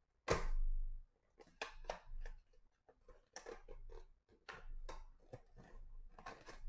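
Soft, irregular clicks and rustles of handling close to the microphone, with a longer rustling rush about a quarter second in.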